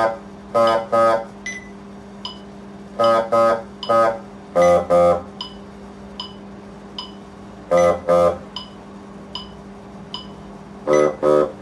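Bassoon playing short, detached notes in groups of two to four with pauses between them. Faint, regular ticks come about every three quarters of a second, over a steady low hum.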